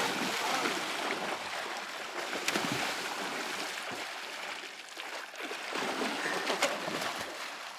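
Steady rush of flowing water, with a few faint voices in the background.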